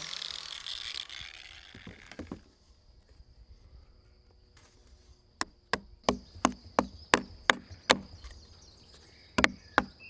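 An angle grinder winding down after being switched off, its whine falling away. A few seconds later a wooden mallet strikes a chisel cutting into oak, in a steady run of about three blows a second, with a brief pause and more blows near the end.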